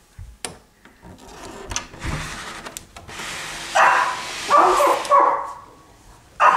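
A dog barking several times in quick succession, starting about four seconds in, with one more bark near the end.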